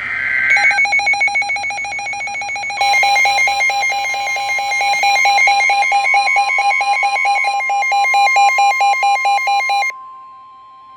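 Emergency Alert System alert tones for a severe thunderstorm warning: a loud electronic alarm pulsing about five times a second, joined about three seconds in by a steady high tone. The pulsing cuts off near the end, leaving the steady tone sounding alone.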